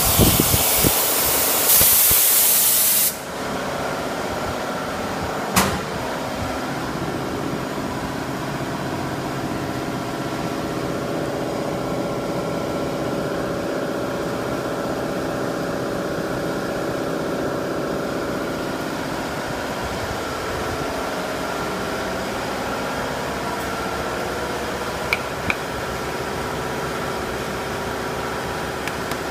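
150 W CO2 laser cutting machine running while it cuts MDF. A loud hiss stops abruptly about three seconds in, then comes a steady mechanical hum with several held tones, a single click about six seconds in and a few faint ticks near the end.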